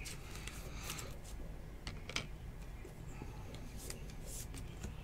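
Faint handling sounds of a trading card being slipped into a plastic sleeve: light rustling with a few small scattered ticks.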